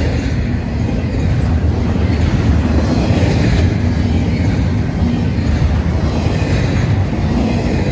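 Freight train rolling past close by: a loud, steady rumble of wheels on the rails with no let-up.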